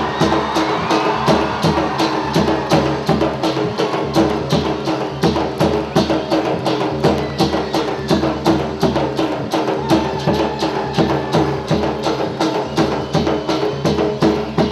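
Gujarati folk dance music: a fast, even beat of sharp percussive clicks under sustained melody tones, playing steadily.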